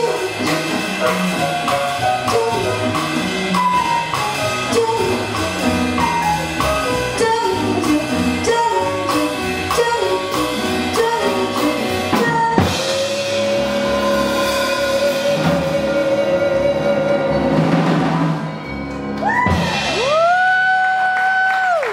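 Live jazz: a female vocalist singing with piano, upright bass and drum kit. About halfway through the voice holds one long note over the band, and the song closes on a final sustained note near the end.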